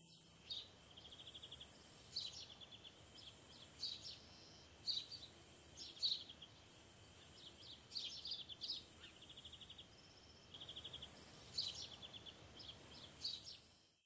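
Birds chirping in short trills, over a high buzzing that pulses about every two seconds and faint steady background noise; it all cuts off near the end.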